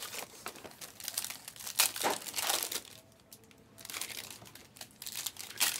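Plastic trading card pack wrappers crinkling and rustling as packs are opened and the cards handled, in short irregular crackles with a brief lull about three seconds in.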